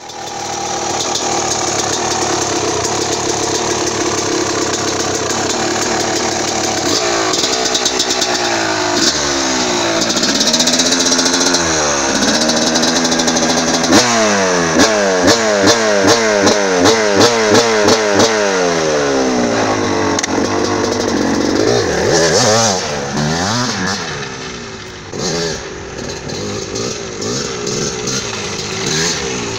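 Yamaha YZ two-stroke motocross engine, bored out to about 300 cc with an Athena big-bore kit and breathing through an FMF exhaust, running on its first start-up after the build. It runs steadily at first, then is blipped, then given a quick run of about ten sharp revs and a long rev. Near the end the bike pulls away under throttle.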